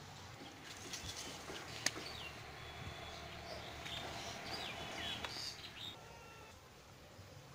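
Small birds chirping in short calls, with a sharp click about two seconds in.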